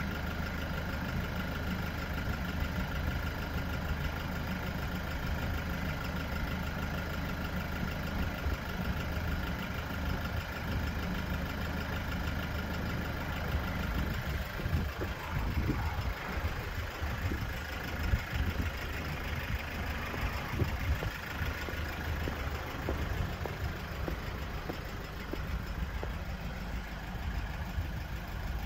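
Toyota Avensis 2.0 D-4D four-cylinder turbodiesel engine idling steadily, with uneven low rumbles about halfway through.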